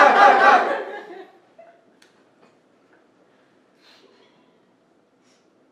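A group of people laughing together, loud for about the first second and then dying away. Near quiet follows, with a few faint small ticks.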